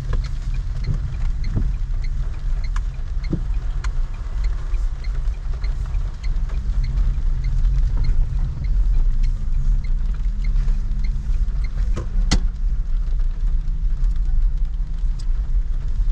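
Steady low rumble of vehicle traffic on a rain-soaked street, over a light hiss, with faint evenly spaced ticking through the first half and one sharp click near the end.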